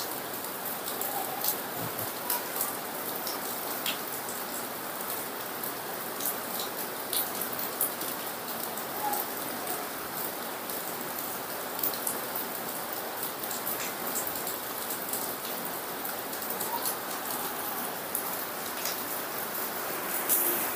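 Heavy rain falling: a steady hiss with many scattered sharp ticks of drops.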